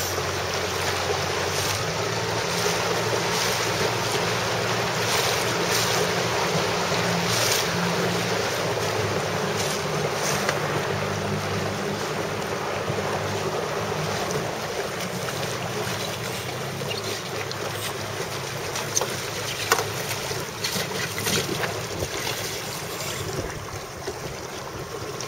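Wind buffeting the microphone and water rushing past a moving boat's hull, with a low hum underneath. Two brief knocks come about three quarters of the way through.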